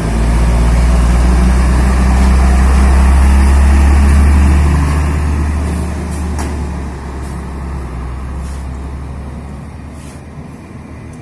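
Heavy diesel truck driving past, its deep engine drone loudest about four seconds in and then fading as it pulls away.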